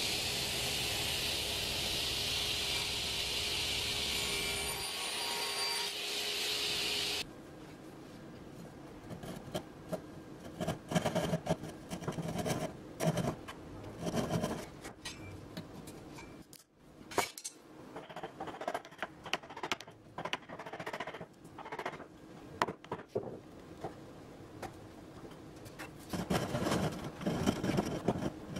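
A table saw cuts a sapele board with a loud, steady hiss that stops abruptly about seven seconds in. After that a hand back saw works through sapele in irregular runs of short rasping strokes.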